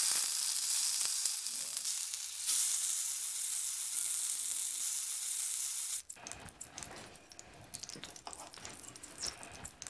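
Sushi-grade tuna fillet searing in olive oil in a very hot frying pan: a steady sizzle that cuts off suddenly about six seconds in, followed by quieter scattered taps.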